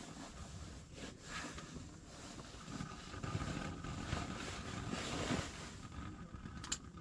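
Wind gusting against an ice fishing shelter's fabric walls, a low unsteady rumble that swells about halfway through, with a single sharp click near the end.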